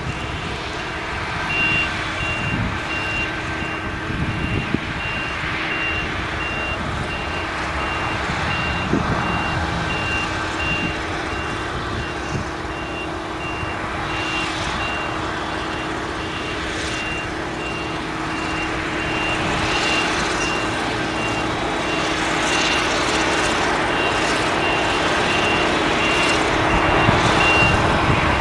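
Claas Jaguar 970 forage harvester's V8 engine and chopper running under load while cutting sorghum, a steady drone that grows louder near the end. A high electronic beep repeats at an even pace throughout.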